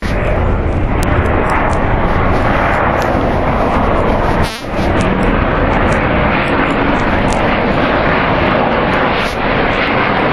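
Twin-engine F/A-18 Hornet jet flying overhead: a loud, steady jet roar, with one brief dip about halfway through.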